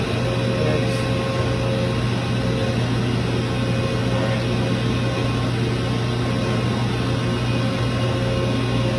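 LVD PPEB120 hydraulic press brake running at rest, a steady low hum from its hydraulic pump and motor with a faint higher whine over it.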